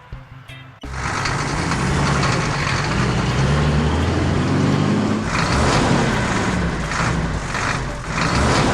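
Heavy truck engine running, its pitch rising and falling, cutting in abruptly about a second in.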